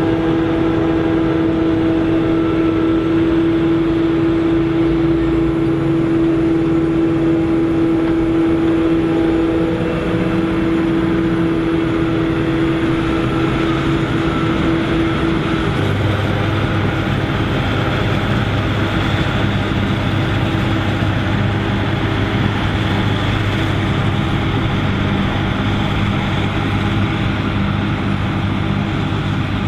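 Claas Jaguar 850 self-propelled forage harvester running under load while chopping standing maize for silage, with the tractor hauling the silage trailer alongside. A loud, steady machine noise, with a high whine in the first half that fades about halfway, leaving a deeper steady hum.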